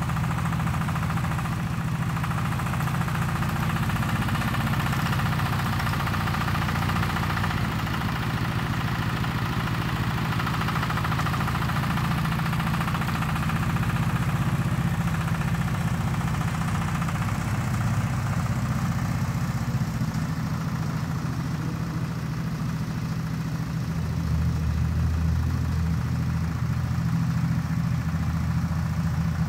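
Homemade tractor's engine running steadily as it pushes and spreads soil with its front blade, with a deeper note joining near the end.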